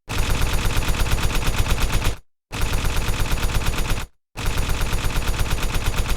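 Machine-gun-fire sound effect: a fast, evenly spaced rattle of about nine shots a second, in three bursts cut apart by two short dead-silent gaps.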